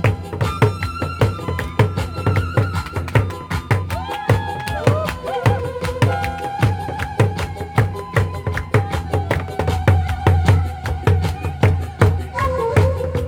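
Nanta drumming: rapid, steady stick strokes on drums played over a recorded backing track that carries a held, shifting melody line.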